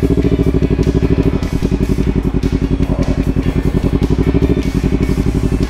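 Motorcycle engine running at a low, steady speed, its exhaust pulsing evenly as the bike is ridden along the trail.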